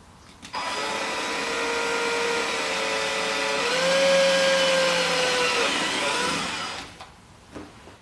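Electric drill boring a hole through a motorcycle Tour-pak's wall. The motor whine starts about half a second in, rises in pitch a little past the middle, then eases back and stops about a second before the end.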